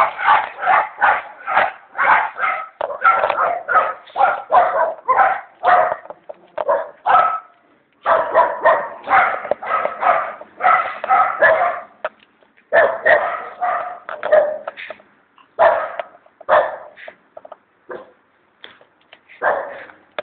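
Shih tzu barking rapidly and repeatedly, in runs of about three or four barks a second broken by short pauses, thinning to scattered barks over the last few seconds.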